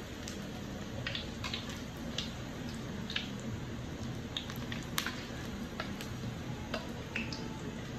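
Doughnuts deep-frying in hot oil in a wok: a steady sizzle broken by frequent sharp crackles and pops.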